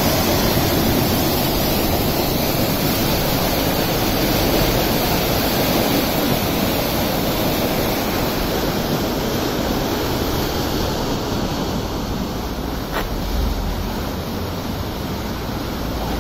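Water rushing and churning through a river lock's open sluices as the lock chamber empties. A steady, loud rush that eases a little in the second half, with one faint click about thirteen seconds in.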